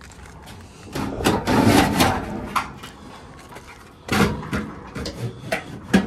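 Sheet metal of a Carrier package unit scraping and clunking as the blower assembly is worked loose inside the cabinet. There is a long rough scrape about a second in, another shorter one near four seconds, a few light clicks, and a sharp knock at the end.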